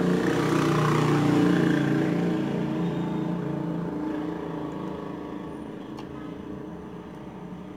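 Car audio head unit playing a CD through its speaker, a low, bass-heavy sound that slowly grows quieter over the last few seconds while the bass and fader controls are being turned.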